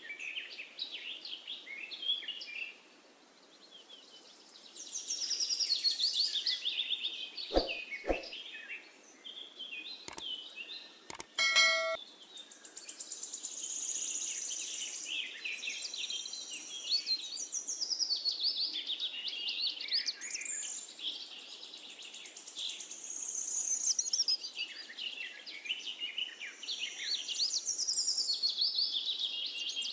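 Small birds singing and chirping: many short, high twitters and trills that overlap one another. There are a few sharp clicks about a quarter of the way through and a brief ringing ding a little later.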